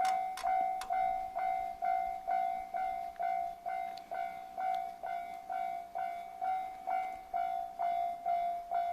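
Railway level crossing warning bell ringing in its steady repeated 'kan-kan' rhythm, a little over two strikes a second, each strike the same ringing tone. It signals that the crossing is active and a train is approaching.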